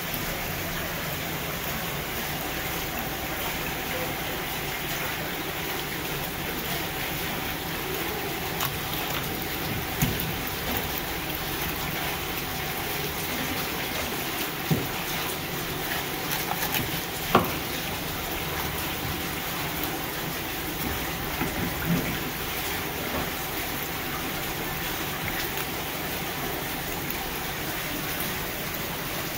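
Steady rush of running tap water, with a few sharp knocks from the fish and knife being handled on the wooden cutting board.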